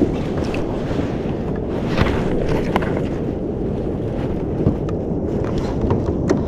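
Wind buffeting the microphone: a steady low rumble, with a few light knocks.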